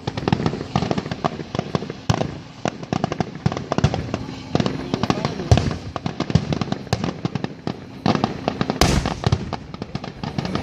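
Fireworks going off in quick succession, a dense crackle of bangs and pops, with one big boom about nine seconds in.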